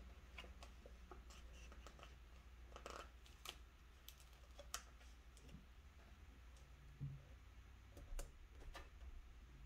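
Faint, scattered clicks and taps of paper stickers being handled and pressed onto a planner page, over a low steady hum.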